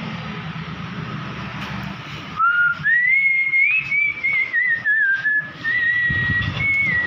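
A person whistling a slow, wandering tune, starting about two and a half seconds in, over a steady low hum and hiss.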